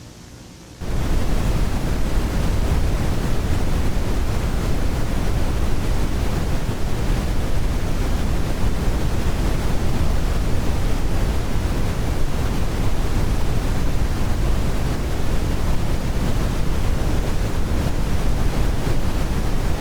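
Loud, steady broadcast static hiss, heavy in the low end, cutting in suddenly about a second in.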